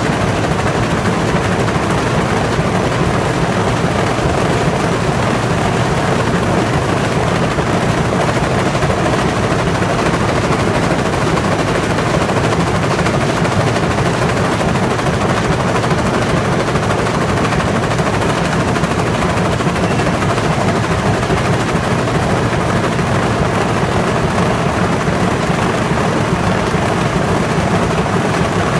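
Corrugated-carton vibrator-stacker running: a steady, rapid, continuous clatter as die-cut corrugated board sheets are shaken on the belts and rollers to knock out the waste scraps.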